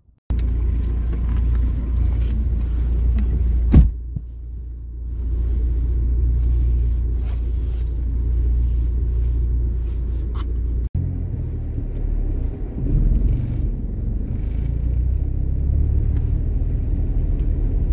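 Steady low rumble of a car driving, heard from inside the cabin: engine and tyre noise on a snow-covered gravel road. A single sharp knock comes about four seconds in, and there is a brief dropout near eleven seconds.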